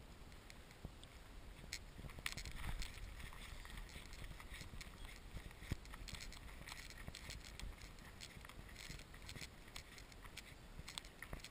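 Footsteps on a dirt path: a faint, irregular run of scuffs and light clicks, with a low rumble of movement on the camera.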